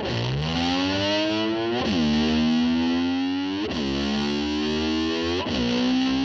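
Distorted electric guitar played with a slide, imitating a motor scooter revving. Four times the pitch swoops sharply, then slides slowly upward and holds.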